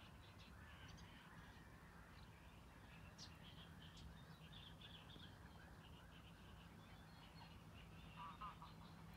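Faint chirping and calling of small birds, many short calls overlapping, with a brief denser burst of calls about eight seconds in. A faint steady low hum runs underneath.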